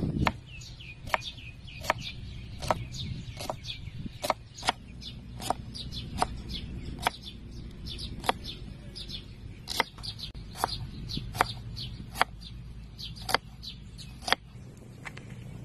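Short falling bird chirps, mostly near the start and again around the middle, among sharp clicks or taps at irregular intervals, about one or two a second, over a low rumble.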